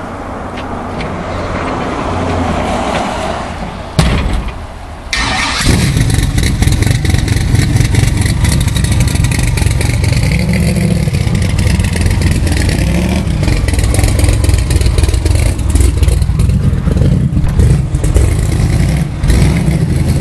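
Twin-turbo 406 small-block Chevy V8 in a 1977 Camaro, not yet tuned, being started. A few seconds of whirring and a sharp crack about four seconds in, then the engine catches about a second later and runs loud and uneven, its revs rising and falling.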